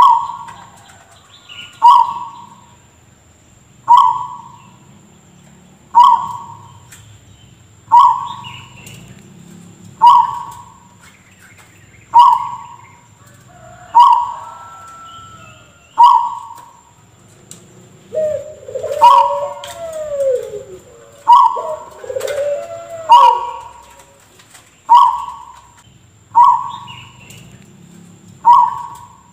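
Zebra dove (perkutut) giving a short, abrupt call that sounds like a cough, repeated about every two seconds. Other gliding bird calls overlap for a few seconds past the middle.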